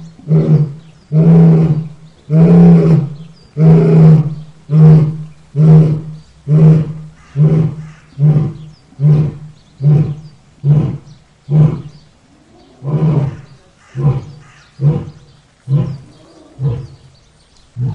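Lion roaring: a long sequence of deep grunting roars, the first ones drawn out, then shorter and coming faster, about one every two-thirds of a second, weakening toward the end.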